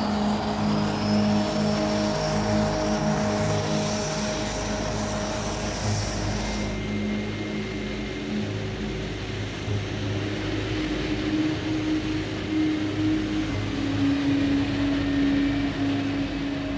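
Steady aircraft engine drone with a high whine, under held low music notes that change pitch now and then; the whine stops about seven seconds in and the drone carries on.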